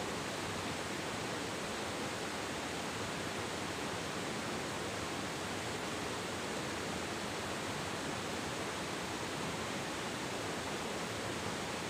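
Steady rush of a river flowing over rocks and around boulders.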